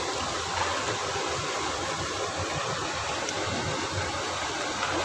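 Steady rushing of flowing river water, an even hiss with no rhythm or pitch.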